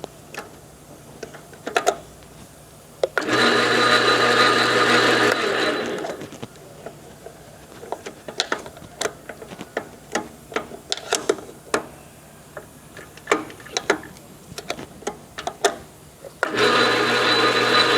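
Enco 12" x 36" gap-bed engine lathe running with a steady hum and gear whine, which stops about five seconds in and winds down. A long run of sharp clicks and knocks follows as the levers are worked, and the lathe starts up again abruptly near the end.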